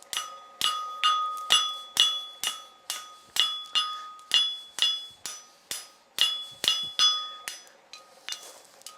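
Hammer blows on a steel anvil, about two a second, each followed by a bright ring. This is a blacksmith upsetting the hot end of a steel bar to make it fatter for a holdfast's pad. The blows grow lighter near the end.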